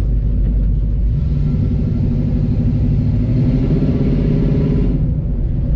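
1970 Chevrolet C-10's 350 V8 with headers and Flowmaster-style dual exhaust rumbling while the truck drives, heard inside the cab. The sound grows fuller from about a second in and eases back near the end.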